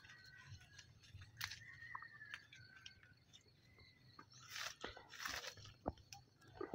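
Faint crackling rustle of leaves and twigs as a baby monkey climbs through a pomelo tree's branches, with scattered small clicks and a louder rustle about four and a half seconds in.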